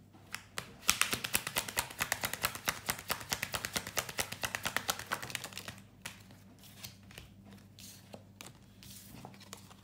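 A deck of tarot cards being shuffled: a rapid run of papery card clicks for about five seconds, then a few scattered clicks as the cards are handled.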